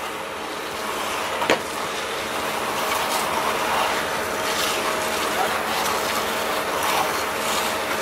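Heavy engine running steadily, with a faint steady whine and a single click about one and a half seconds in.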